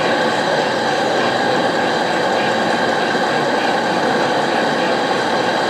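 Model train running on an exhibition layout: a steady, unbroken running noise.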